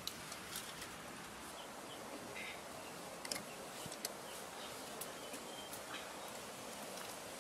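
Brush rustling and footsteps of someone walking through forest undergrowth with an armful of dry sticks, with a few sharp twig snaps, the loudest about three seconds in. Faint high chirps sound in the background.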